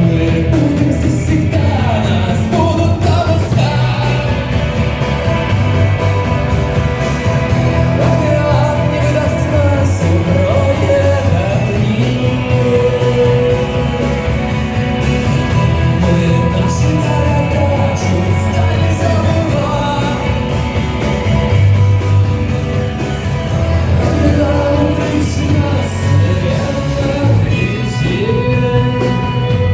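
A rock-pop song with a sung vocal over bass, drums and guitar, starting suddenly at full loudness.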